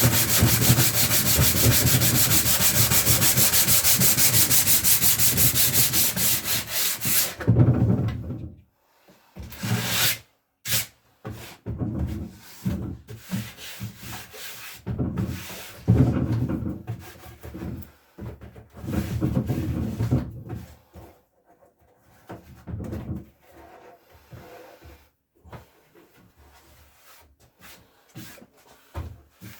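Sanding on a wooden chest of drawers: a loud, steady sanding noise for the first seven seconds or so stops, then gives way to short, irregular rubbing strokes.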